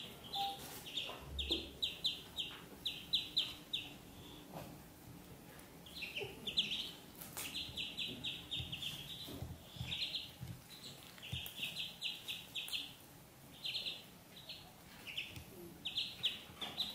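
Ducklings peeping: runs of quick, high-pitched peeps, several a second, coming in bursts with short pauses between.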